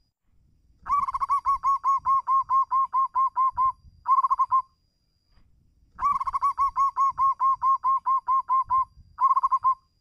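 Zebra dove cooing: two bouts about five seconds apart, each a quick run of about a dozen rolling coo notes, about five a second, ending in a short separate flourish. This is the dove's song for calling a rival.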